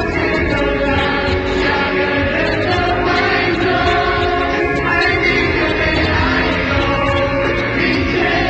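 Live Mandopop concert performance: a pop song with band backing and singing over the arena sound system, recorded from far back in the hall so it sounds distant and blurred.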